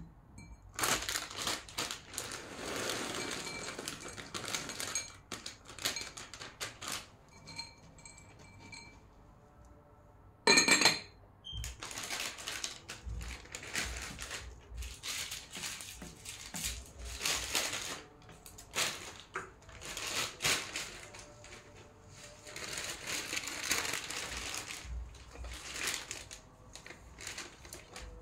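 Household tidying noises: irregular rustling and shuffling as things are handled on a glass-topped table, with one loud, sharp clink of glass that rings briefly about ten seconds in.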